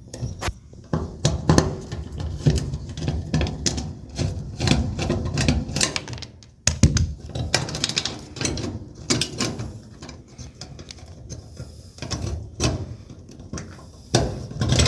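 Irregular clicking, knocking and rattling of hand tools and metal parts as the screws are undone and the 4-wire power cord is worked free of an electric dryer's terminal block.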